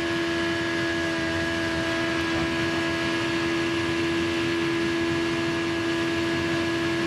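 Onboard audio of a 2010 IndyCar Series car at full throttle on an oval. Its 3.5-litre Honda V8 holds a steady high pitch without shifting, over wind and tyre noise.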